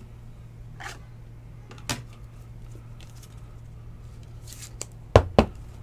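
Trading cards being handled in the hands: a few faint rustles and clicks of card stock, then two sharp knocks close together near the end, over a steady low hum.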